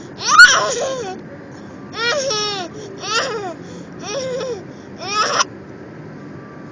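Toddler laughing through hiccups: five short high-pitched squeals about a second apart, the first the loudest.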